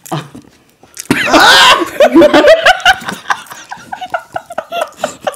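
A man and two women laughing hard together, starting about a second in with a loud high peal, then going on in short repeated gasps of laughter.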